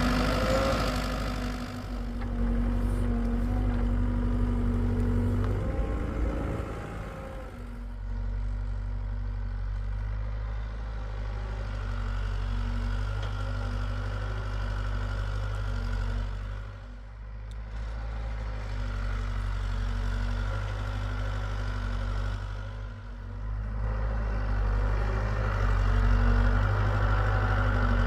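Hitachi EX75UR excavator's diesel engine running steadily while it digs, its sound briefly dropping twice in the second half.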